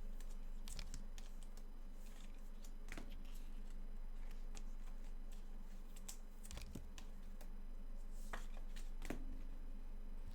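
Trading cards being handled: faint scattered taps and slides of cards, over a steady low hum.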